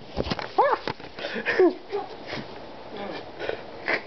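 Cardboard box flaps being handled, with scrapes and knocks. There are two short, high vocal sounds that rise and fall, about half a second and a second and a half in.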